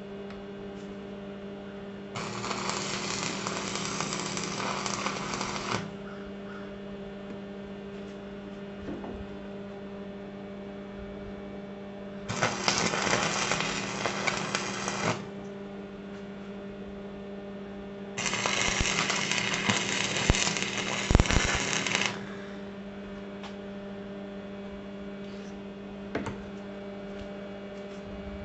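Wire-feed welder laying three short welds on steel brackets, each a few seconds of steady crackling arc that starts and stops on the trigger. A steady electrical hum carries on between the welds.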